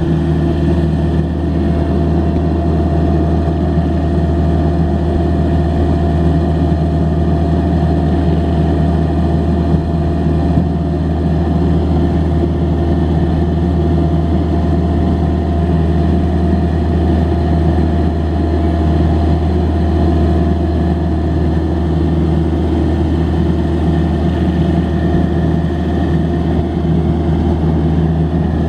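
Deutz four-cylinder diesel engine of a 1991 Vermeer 665B stump grinder running steadily at an even speed.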